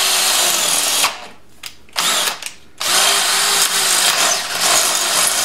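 Cordless drill boring out a stud hole in an exhaust manifold through a drill guide, run in short bursts: about a second of drilling, a pause, two brief blips, then a longer run of nearly three seconds. The drill is started and stopped by hand so the bit doesn't bind as it cuts through.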